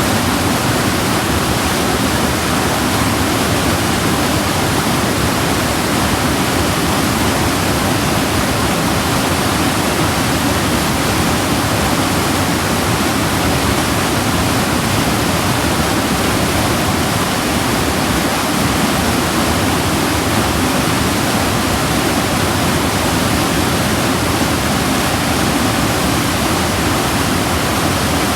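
Waterfall: water falling and splashing in a steady, loud, unbroken rush.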